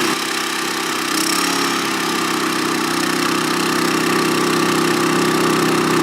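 Champion 3400-watt inverter generator's single-cylinder engine running on propane in economy mode. About a second in, its pitch rises a little and then holds steady, as the engine speeds up to take on a load just plugged in.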